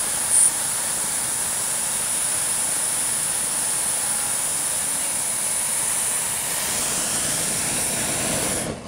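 Hot-air balloon's propane burner firing in one long blast: a loud, steady rushing hiss that cuts off abruptly near the end.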